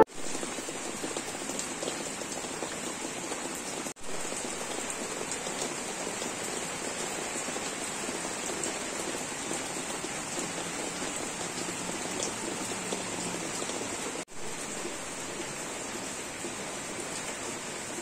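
Steady rainfall, an even hiss. It cuts out briefly twice, about four seconds in and again near fourteen seconds.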